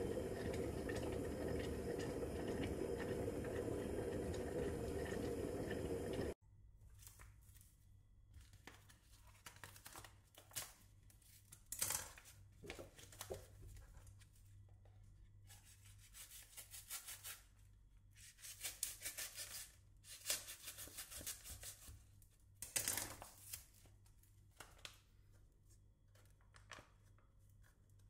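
Stainless-steel electric kettle heating water: a steady rushing noise that cuts off abruptly about six seconds in. After that comes intermittent crinkling and tearing as a packet of ground coffee is handled and torn open.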